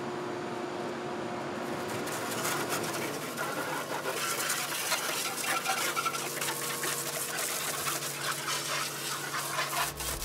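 Wet Scotch-Brite scuff pad scrubbing the painted metal of a car engine bay with water and degreaser, a rapid rubbing that starts about two seconds in, working out embedded oil stains.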